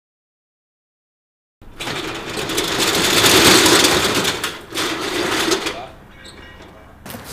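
Metal roller shutter being raised, a loud rattle of its slats that starts abruptly about a second and a half in and dies away after about four seconds.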